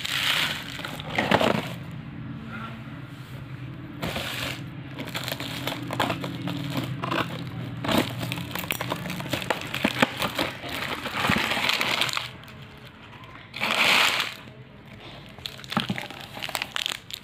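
Plastic candy wrappers crinkling and rustling under hands, with the cellophane film of a candy box crackling as it is cut and torn open with scissors. The sound comes as irregular crackles and clicks, with louder bursts of rustling about a second in and again near the end.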